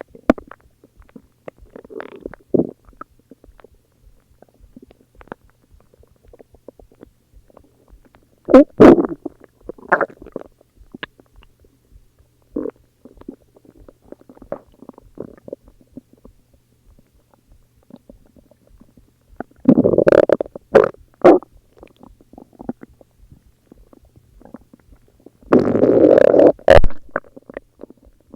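Human stomach growling and gurgling in irregular bursts: softer gurgles throughout, with loud gurgling rumbles about nine seconds in, around twenty seconds in, and again near the end.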